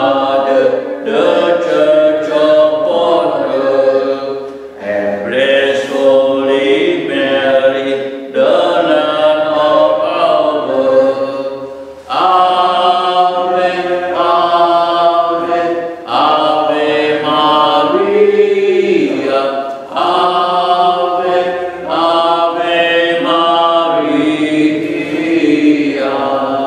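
Voices singing a church hymn in phrases of a few seconds each, with short pauses for breath between lines.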